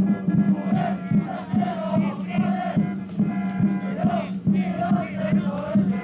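Supporters' cheering section chanting in unison over a steady drumbeat of about two beats a second, with a sustained droning tone underneath.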